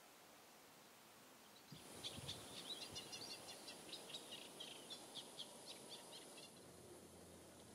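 Faint: a songbird sings a quick run of short, high chirps and twitters from about two seconds in until past six seconds, over a steady high-pitched hiss.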